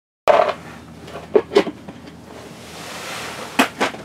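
The sound cuts in with a clunk, followed by two pairs of quick knocks, one pair about a second in and one near the end, over a low steady hiss.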